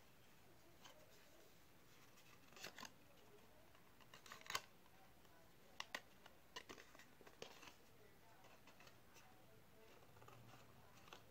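Scissors snipping in short, faint, scattered cuts, some in quick pairs, the loudest cut about four and a half seconds in.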